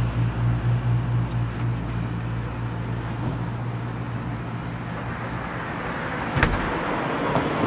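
A low, steady motor hum fading out about five and a half seconds in, over outdoor background noise, with one sharp click near the end.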